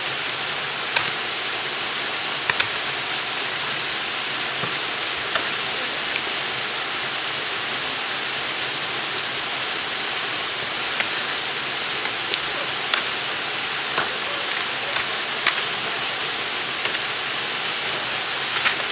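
Ice axe picks and crampons striking frozen waterfall ice, heard as sharp, scattered clicks every one to three seconds over a steady hiss.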